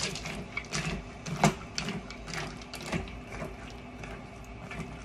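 Wooden spoon stirring frozen cranberries in a metal stockpot of water: the hard berries clatter and tick against each other and the pot in a quick, uneven run of clicks, with one louder knock about a second and a half in.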